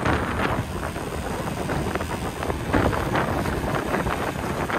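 Wind buffeting the microphone of a motorcycle rider on the move, coming in uneven surges over a low rumble.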